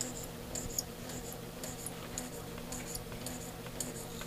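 Electric sewing machine sewing slowly, its needle stitching through a sheet of paper: a steady motor hum with light, even clicking about twice a second.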